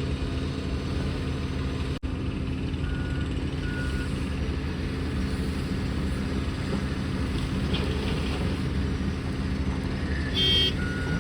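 Heavy diesel engine running steadily at a worksite, with a truck's reversing alarm beeping twice a few seconds in and starting again at the end. Just before the end there is a brief, loud pitched blast, the loudest moment.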